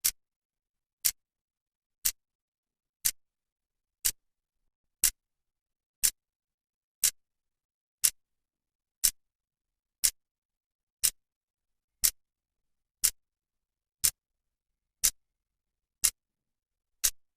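Clock second hand ticking, one sharp tick each second at a perfectly even pace.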